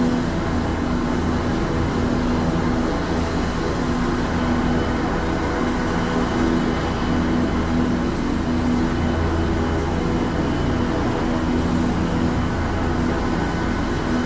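AgustaWestland police helicopter's turbine engines and main rotor running steadily as it taxis slowly on the ground: a steady hum with a held low tone.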